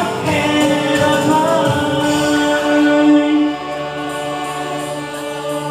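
A man singing into a microphone over a backing track, holding one long note that ends about three and a half seconds in, after which the backing music holds a low sustained chord.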